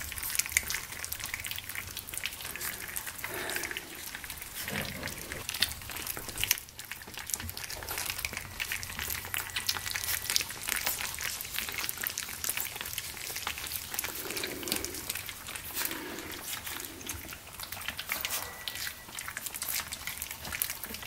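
A litter of three-week-old Aussiedoodle puppies eating wet raw food from a shared dish: a steady mass of small smacking, lapping and chewing clicks, with a few soft low puppy sounds in the second half.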